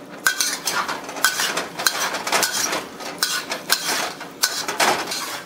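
A metal ladle and wok spatula scraping and clinking against a wok in repeated, irregular strokes. They are stirring the sauce as a cornstarch slurry thickens it.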